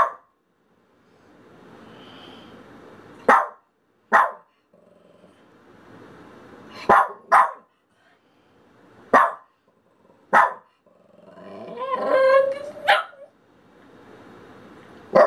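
Small long-haired dog barking in short sharp single barks, about eight of them, with low growling between, and a longer wavering growl-whine about two-thirds through. The dog is frustrated at not being allowed to play.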